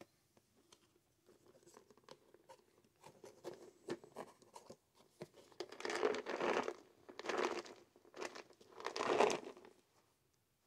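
Plastic tub of Feline Greenies dry cat treats being shaken, the treats rattling inside in three short bursts in the second half, after some lighter clicking and handling of the tub.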